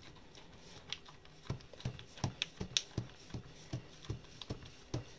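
Fingers pressing shortcrust dough against a disposable aluminium foil pie tin: a run of short taps and crinkles from the foil, two or three a second after a single one about a second in.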